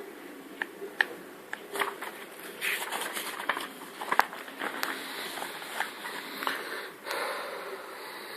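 Bosch SMS69M58EU dishwasher running its TurboSpeed programme: a steady wash of water spraying and splashing inside the tub, broken by irregular sharp clicks and knocks. The loudest of these come about a second in and about four seconds in.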